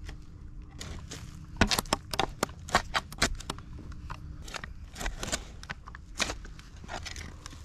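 Feet stamping and shuffling on loose soil strewn with roots and twigs: a run of irregular crunches and cracks starting about one and a half seconds in, as earth is packed down around the base of a wooden post.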